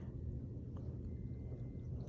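Low steady background hum with no burp or hiccup: a quiet lull between them.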